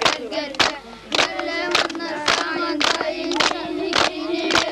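A group of voices, children among them, singing together over steady rhythmic handclaps that come just under two a second.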